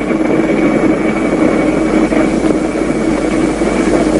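Jet airliner in flight, heard as steady cabin engine noise: an even rush with a constant low hum and a faint high whine.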